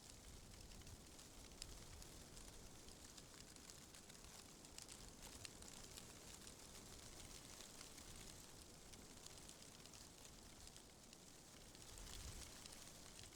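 Faint wind through tree leaves: a steady rustle full of fine crackling leaf ticks over a low wind rumble, swelling briefly near the end.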